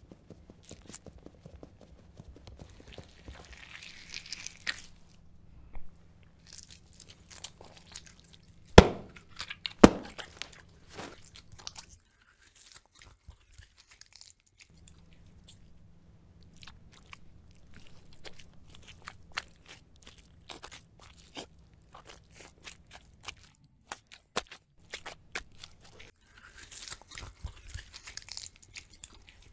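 Squishy, squelchy slime sounds: a run of small wet clicks and smacks, with two louder splats about nine and ten seconds in and short stretches of hiss near the start and end.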